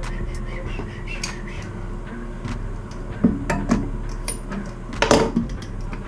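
Metal clinks and knocks from hands and a tool working the supply-line and fill-valve fittings under a toilet tank, loosening the old ball cock. There are a few sharp knocks about three seconds in and the loudest one about five seconds in, over a steady low hum.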